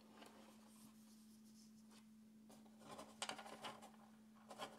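Near silence: faint scuffing and rubbing of fingers handling and turning a watch movement on a leather movement cushion, a few soft scrapes about three seconds in and again near the end, over a faint steady hum.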